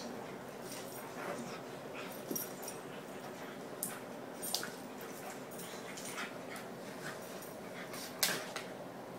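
Standard schnauzer making soft dog noises, with a scatter of short sharp clicks and taps, the loudest about eight seconds in.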